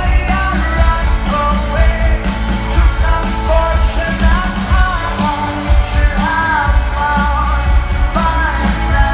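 A live rock band playing a song, with a lead vocal line over drums, bass and guitars.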